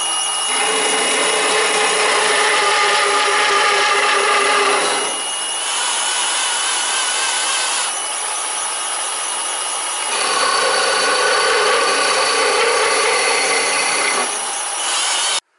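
Milling machine cutter taking the final light cut across the bed-plate slots, with a cordless drill whining steadily as it drives the table's power feed. The cutting grows louder about half a second in and again about ten seconds in, easing in between, and everything cuts off suddenly near the end.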